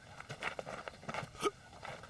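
Several short, sharp knocks or taps at irregular intervals, the loudest about one and a half seconds in.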